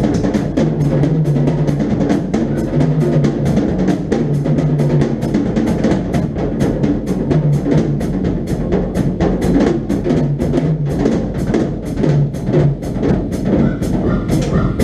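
Rock band playing with a drum kit and bass: a low repeating bass riff of held notes under steady cymbal and drum strokes, about two to three a second.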